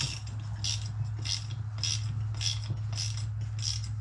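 Ratchet wrench clicking in short, even bursts, a little under two a second, as it runs a Nylock nut onto a bolt of the spreader's hitch and brace. A steady low hum sits underneath.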